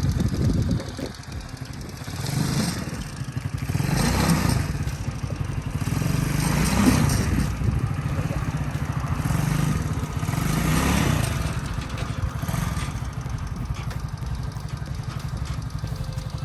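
Small single-cylinder four-stroke engine of a 110cc ATV running, revving up and dropping back several times, running properly on its newly fitted carburettor.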